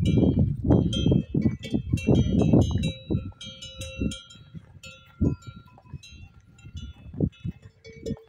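Cowbells on grazing cattle clanking irregularly, a metallic jangle of many small strikes that rings on. A heavy low rumble sits under the bells for the first three seconds.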